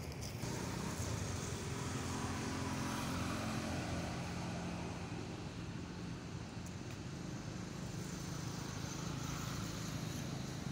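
A motor vehicle's engine running steadily, a low hum with a bed of traffic noise.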